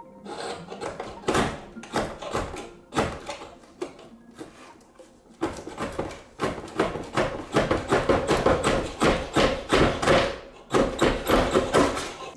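Rapid rasping strokes of a long blade working through material by hand, in bursts: one in the first few seconds, a quieter spell, then a denser run from about five seconds in with a brief break near the end.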